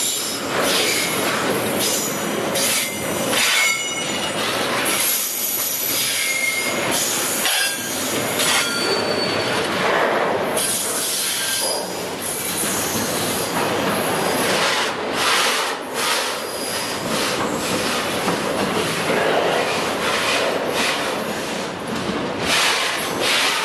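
Freight train wagons passing close by: steel wheels rolling and clattering over the rails in a steady loud rumble, with brief high-pitched wheel squeals now and then.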